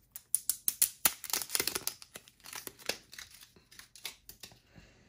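Apple Pencil packaging being handled and opened: a quick run of crinkling rustles and sharp clicks that dies away near the end.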